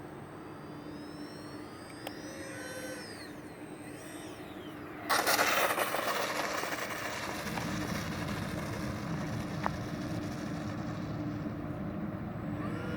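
Electric ducted fans of a radio-controlled Airbus A330 model airliner whining, their pitch sliding up and down with the throttle on landing approach. About five seconds in a sudden loud rush as the model touches down, followed by steady rough noise as it rolls out.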